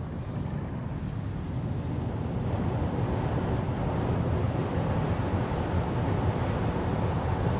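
Aircraft in flight: a steady low rumble with a thin, wavering high whine, growing gradually louder.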